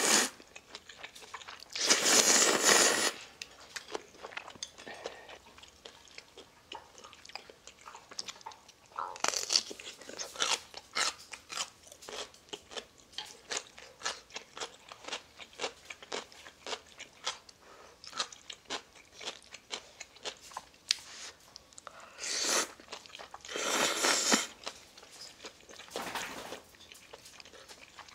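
A person eating spicy instant ramyeon noodles: about five long, loud slurps of noodles, with chewing and crunching clicks in between.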